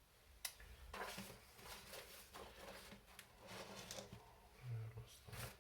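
Faint rummaging through the kit's small parts bags and boxes: irregular rustling and light clicks, with a sharper click about half a second in and a soft thud near the end.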